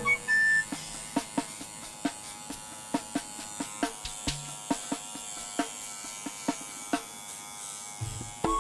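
Small electric pet trimmer buzzing steadily while trimming the fur on a kitten's paw, with scattered sharp clicks. Background music stops at the start and comes back in near the end.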